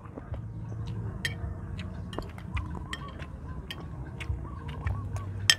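Scattered light clinks of a metal spoon against ceramic plates and bowls during a meal, with small eating and handling clicks, over a low steady hum.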